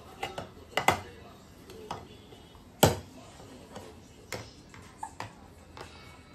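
Plastic toy apple knocked and tapped against a plastic high-chair tray: a handful of sharp knocks, the loudest about three seconds in, with lighter taps between.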